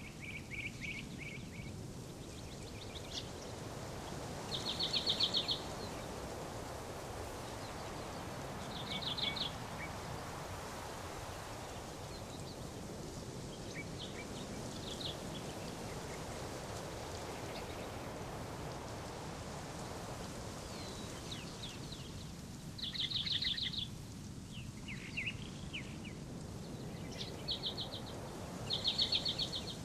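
Small songbirds chirping: short, rapid, high trilled phrases about a second long, repeated every few seconds and more often near the end, over a steady outdoor background hiss.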